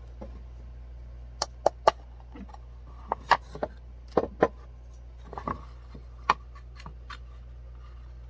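Hammer striking a nail into a wooden birdhouse board: about a dozen sharp, irregular strikes, some in quick pairs.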